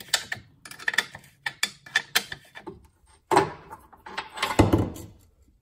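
Ratcheting wrench turning a suspension nut on a rear control arm bolt, a run of quick clicks. Near the end come a few louder metal scrapes and knocks as the nut and bolt are worked loose.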